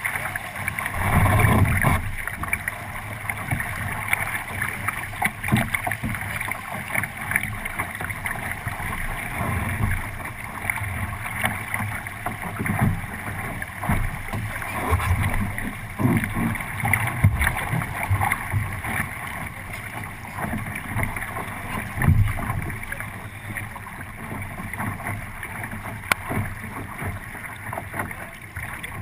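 Water rushing along the hull of a 29er sailing skiff moving at speed, with wind buffeting the deck-mounted camera's microphone. Irregular low thumps of the hull through the chop run throughout, loudest about a second in and again about three quarters through.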